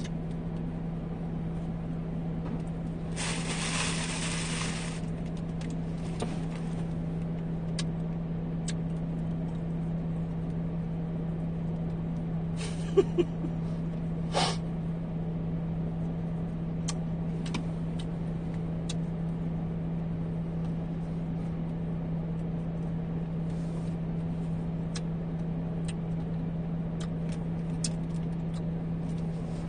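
Steady low hum inside a car's cabin, with small rustles and clicks over it. A hiss lasting about two seconds comes about three seconds in, and two sharp knocks come near the middle.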